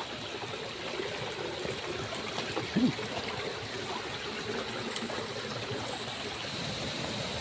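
Steady running water of a stream, trickling, with one brief short sound about three seconds in.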